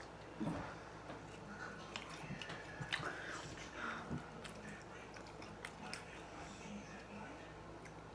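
Chicken nuggets being chewed by two people, faint, with scattered small clicks and mouth sounds.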